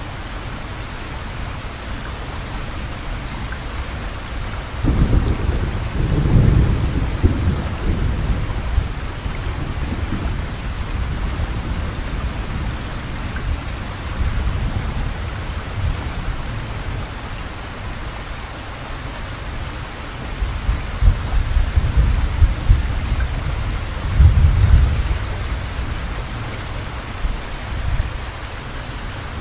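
Steady rain falling, with thunder rumbling low twice: once from about five seconds in, and again from about twenty seconds in, strongest near the end.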